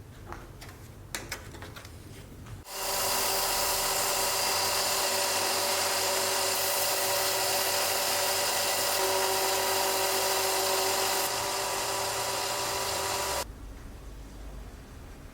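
A few light clicks and knocks, then a power tool starts about three seconds in, runs steadily for about ten seconds and cuts off suddenly.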